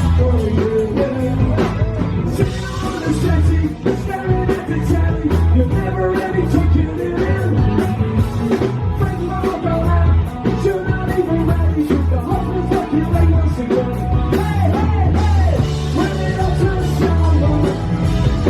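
Live rock band playing a song, with a lead singer over bass, guitar and drums.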